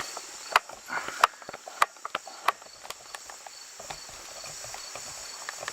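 Sharp metallic clicks and taps from a pin-tumbler padlock and its picks being handled just after it was picked open. The four loudest clicks come about half a second apart in the first half, with smaller ticks between them, and then the clicking dies away.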